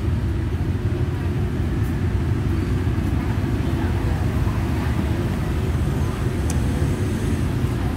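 Steady low rumble of outdoor street background noise, with faint voices underneath.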